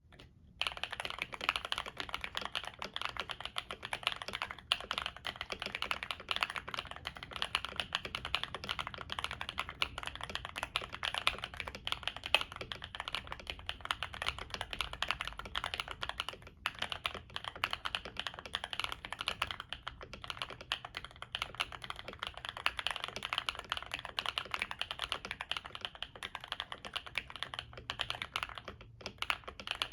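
Continuous fast typing on a KBD67 Lite mechanical keyboard with stock Akko Cream Yellow Pro linear switches on an FR4 plate, tape-modded and case-dampened, with Cherry-profile double-shot PBT keycaps. It is a dense stream of keystrokes that starts about half a second in, with a few brief pauses.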